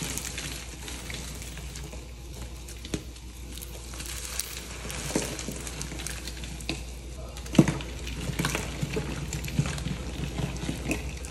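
Soft, dried pasted-powder reform blocks being crushed and crumbled in bare hands. They make a continuous crisp, crackling crunch with fine powder hissing and many small snaps, and one loud crunch about seven and a half seconds in.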